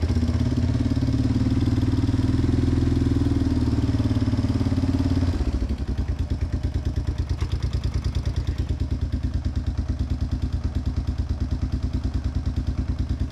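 1992 Yamaha Big Bear 350 ATV's single-cylinder four-stroke engine running. It is louder for the first five seconds or so, then drops back to a steady idle with an even beat.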